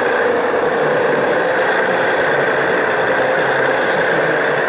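Sound-fitted OO gauge model of a Class 37 diesel locomotive, its decoder and speaker playing the diesel engine running steadily at idle.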